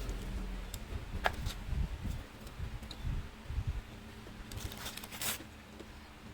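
Someone biting into and chewing spicy chicken close to the microphone. There are soft, irregular low mouth and handling sounds, with a sharp click about a second in and a small cluster of clicks around five seconds.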